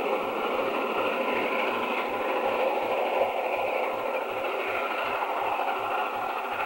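Steam-hauled passenger train running away along the line: a steady rumble of the coaches on the rails, easing slightly near the end as it recedes.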